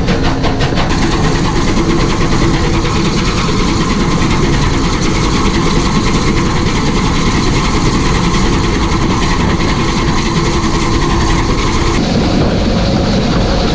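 Rebuilt Bulleid West Country class steam locomotive 34028 Eddystone hauling its train, heard from just behind the tender. There is a quick, even beat of about five strokes a second in the first second, then a steady, loud running rush, whose tone shifts about twelve seconds in.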